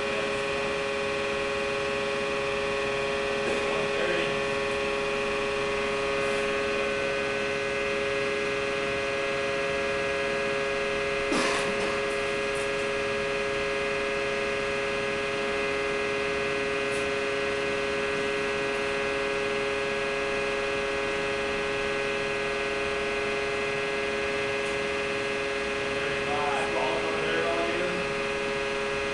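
Steady hum of a compression testing machine loading a concrete cylinder, with a single sharp crack about eleven seconds in as the concrete breaks and chips off.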